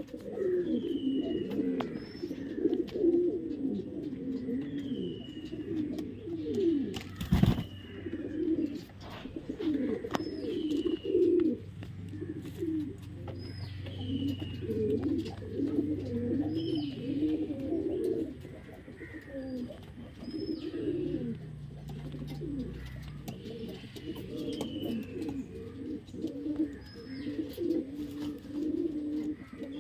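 Domestic pigeons cooing continuously, with low wavering coos overlapping one another. Short high chirps recur every couple of seconds, and there is a sharp knock about seven seconds in.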